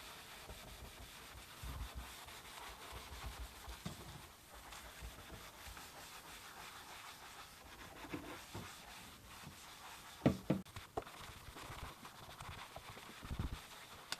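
Quiet rubbing and wiping of hands-on cleaning over a surface, with scattered light thumps and a few sharp knocks about ten seconds in.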